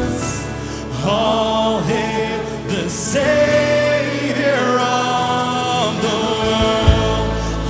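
Live worship music: a group of voices singing a slow, sustained melody over held keyboard chords, with the bass dropping out for a few seconds and a single soft knock near the end.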